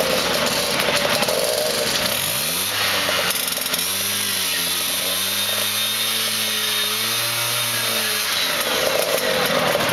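A Vespa scooter's two-stroke engine revving up about two seconds in, held at high revs with a slightly wavering buzz for several seconds, then dropping back down near the end, over the steady rumble of other scooters idling.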